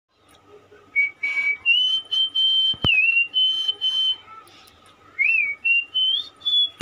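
A person whistling a melody by mouth: a single clear high tone in short phrases that glide between notes, starting about a second in.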